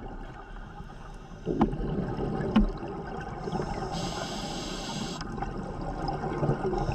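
Water gurgling and bubbling, with two light knocks early on and a hiss of bubbles that starts about three and a half seconds in and stops a second and a half later.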